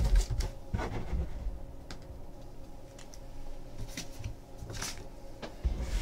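Trading cards being handled and laid down on a tabletop: scattered light clicks and slides of card stock. There is a soft thump against the table at the start and another near the end.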